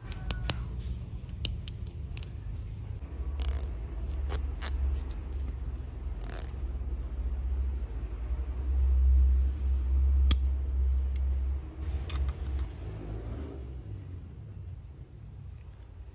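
Handling sounds of hair being combed and parted, with scattered sharp clicks and rustles over a steady low rumble that swells for a few seconds in the middle.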